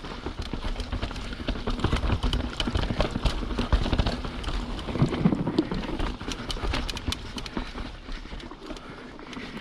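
YT Capra 29 mountain bike riding down a dirt trail: tyres rumbling over roots and rocks, with a dense clatter of chain slap and frame rattles.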